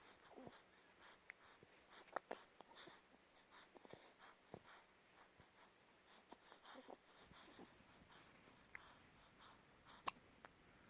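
Near silence with faint, scattered scratchy rustling and small clicks, a few sharper ticks about two seconds in and about ten seconds in.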